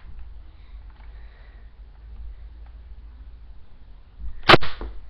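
A toy dart crossbow fired once: a single sharp snap about four and a half seconds in.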